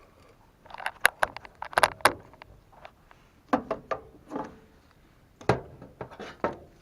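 Tools and small equipment being handled: bunches of sharp clicks, knocks and rattles, about three groups.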